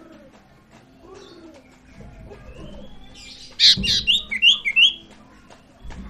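Sirtu songbird calling, used as a lure call to set a silent caged sirtu singing. Faint chirps lead into a loud harsh burst about three and a half seconds in, then four quick repeated whistled notes.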